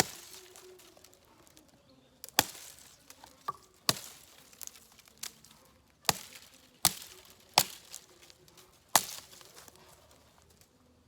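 Cold Steel Rajah II kukri-shaped folding knife chopping into wood: about seven sharp, heavy blows at uneven intervals, with a few lighter knocks between them.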